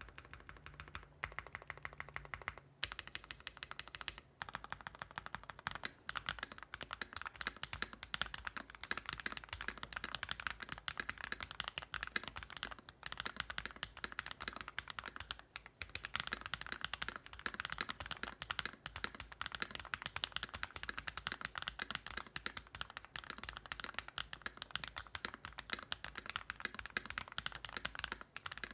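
Fast, continuous typing on a 65% mechanical keyboard with Gateron x Swagkeys Deepping factory-lubed linear switches (nylon housings, POM stem, 58 g springs). The board has case foam and a polycarbonate plate, changing to an aluminum plate in the first few seconds. The keystrokes run densely together, with a few brief pauses early on.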